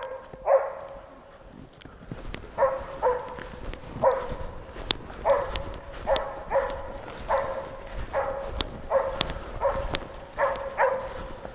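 East Siberian Laika barking over and over: about fifteen short barks at an even pitch, many coming in pairs, with a few sharp snaps between them.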